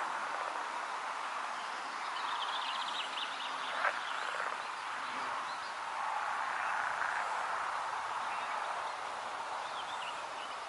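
Pond frog chorus, a steady dense wash of calls, with a rapid pulsed trill about two seconds in and a short click just before four seconds.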